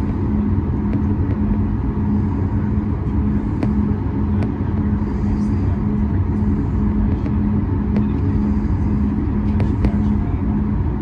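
Steady cabin drone of a Boeing 737 MAX 9's CFM LEAP-1B jet engines and airflow, heard from a window seat, with a steady low hum running through it.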